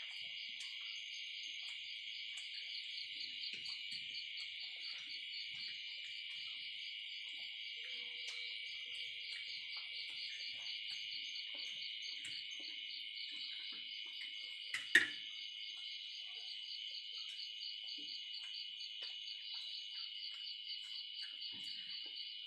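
Steady high-pitched chorus of insects with a fast, even pulsing, behind faint scattered clicks. One sharp click stands out about two-thirds of the way through.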